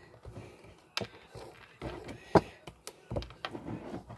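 Close-up handling noise of hands working on a white frame and a string of fairy lights, with a few light taps and clicks; the sharpest click comes about halfway through.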